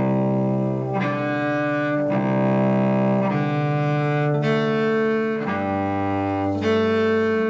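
Solo cello playing a string of connected bowed notes, about one a second, with the bow skipping across non-adjacent strings using a quick slap of the hand; a lower note comes in a little over halfway.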